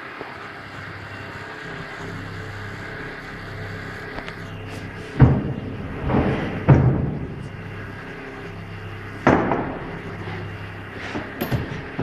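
About five knocks and clunks, starting about five seconds in, as metal waveguide parts and their stands are handled and set down on a wooden bench, over a steady low hum.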